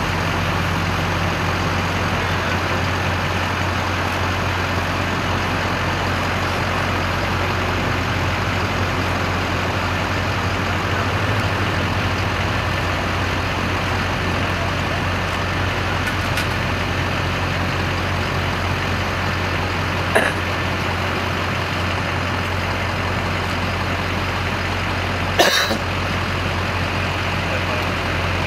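Steady engine running at idle, a constant drone with a low hum that does not change. Two brief sharp clacks cut through it, about twenty and twenty-five seconds in.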